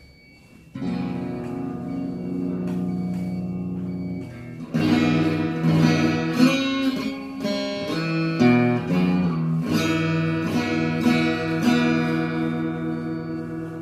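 Custom Cole Clark acoustic-electric guitar played through a small amplifier. A chord rings out about a second in, then a louder passage of picked notes and chords starts about halfway through.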